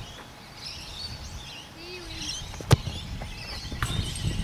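Birds chirping and twittering, with one sharp thump a little past halfway through, the loudest sound here.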